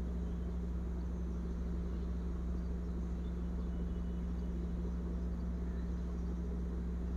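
A steady low hum with a faint hiss above it, unchanging, from the room's background noise.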